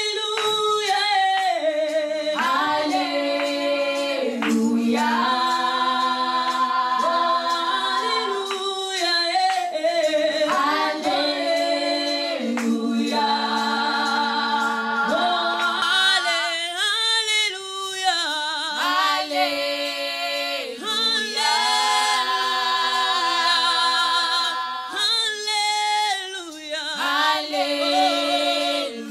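Voices singing a slow worship song without instruments, holding long notes with vibrato.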